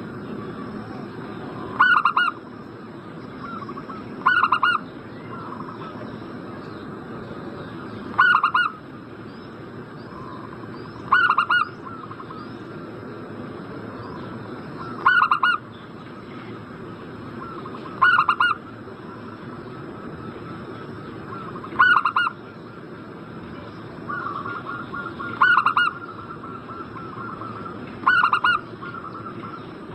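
Zebra dove (perkutut) singing its short, stuttering coo phrase about every three to four seconds, nine times over, a lure song meant to set other perkutut calling. A fainter, rapid call joins in near the end.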